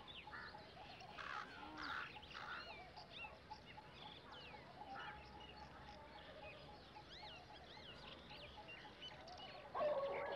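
Faint outdoor ambience of birds chirping, many short whistled calls rising and falling in pitch. A louder sound comes in near the end.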